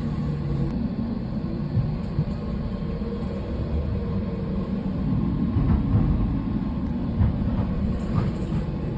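Docklands Light Railway train running: a steady rumble with a faint whine and a few light clicks.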